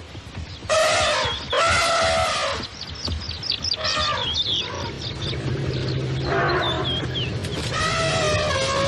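Elephant trumpeting: a series of loud, brassy calls, starting about a second in, again at two seconds, with shorter squeals around four seconds and a long call near the end. A low drone sits under the calls in the middle.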